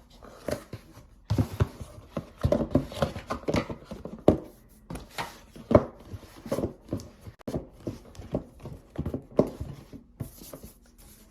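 Irregular knocks, taps and clicks of a cardboard box and packaging being handled on a hard surface.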